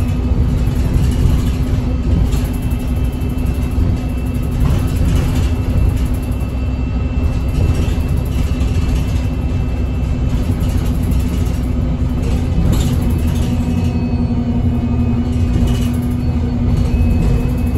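Inside an Alexander Dennis Enviro 200 MMC single-deck bus with a six-cylinder engine and Voith gearbox, driving along: steady engine and road rumble with a constant hum.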